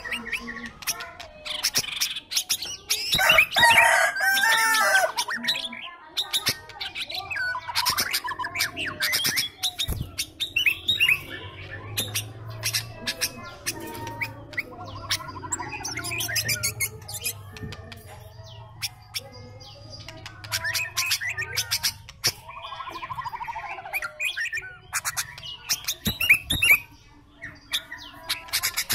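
Sooty-headed bulbul (kutilang) singing and chattering: a long string of sharp chirps and quick warbling phrases, loudest about three to five seconds in.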